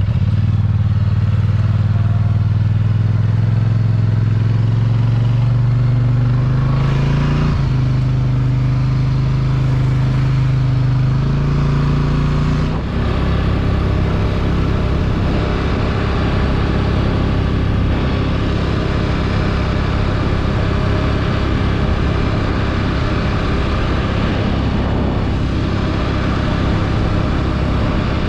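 ATV engine running steadily while being ridden. Its drone rises a little in pitch partway through, then turns rougher and noisier about thirteen seconds in.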